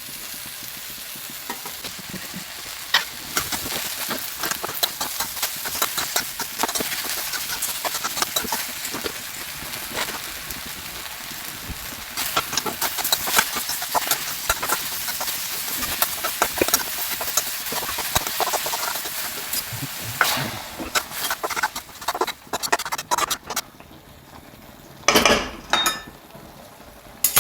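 Fenugreek leaves sizzling as they fry in a pan with onion and tomato, a spatula stirring and scraping through them with rapid small clicks. The sizzle thins out after about twenty seconds, and a few louder knocks from the pan or spatula follow near the end.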